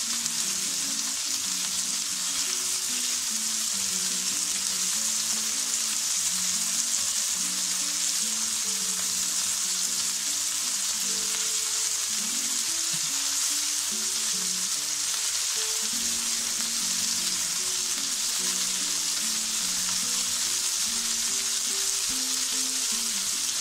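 Boneless chicken thigh pieces frying in oil in a nonstick pan, sizzling steadily as they brown.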